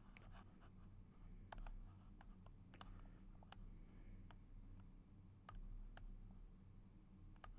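Faint computer mouse clicks, a handful of single sharp clicks spaced irregularly, over a low steady room hum.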